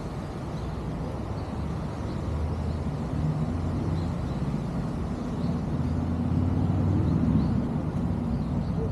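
Low rumble of traffic, swelling in the middle as a heavier vehicle goes by and then easing off.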